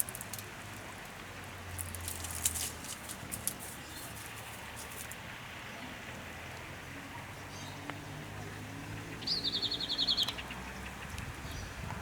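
Outdoor ambience with light rustling and crackling, then a small bird's rapid trill, slightly falling in pitch and lasting about a second, about nine seconds in.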